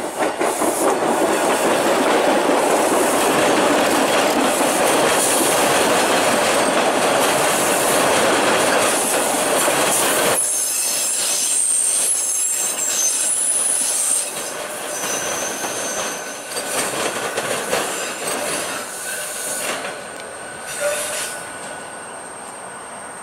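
A TTC T-1 subway train running past on the track, loud wheel-on-rail noise for about the first ten seconds. Then high-pitched wheel squeals as it moves away over the switches, the sound fading over the last several seconds.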